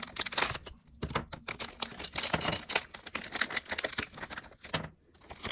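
Hands handling a LEGO minifigure blind bag and its contents: crinkling plastic packet and rapid small clicks of hard plastic LEGO pieces, with brief pauses about a second in and near the end.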